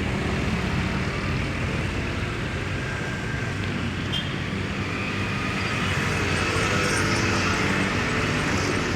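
Road traffic: engines of buses and cars running as they drive past, growing louder from about five to eight seconds in as a vehicle goes by.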